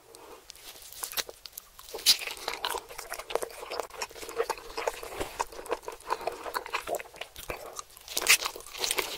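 Close-miked eating sounds of a whole roast chicken: crisp skin crackling as pieces are torn by hand and bitten, with crunching and chewing. The loudest crunches come about two seconds in and again near the end.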